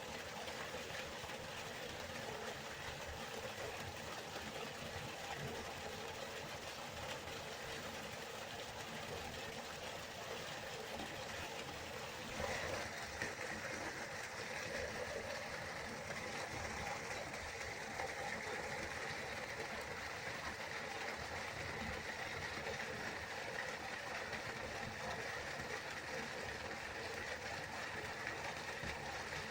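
Waterfall: a steady rush of falling water. About twelve seconds in, after a brief knock, the rush turns brighter and hissier.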